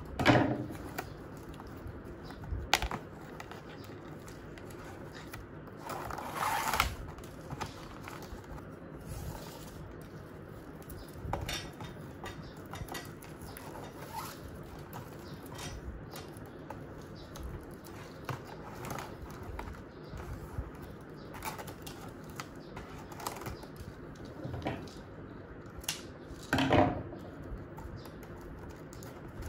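Plastic curling ribbon rustling and crinkling as it is pulled, looped and tied around a cardboard cake box, with scattered light knocks and taps on the wooden tabletop; the loudest knocks come at the very start and about 27 seconds in.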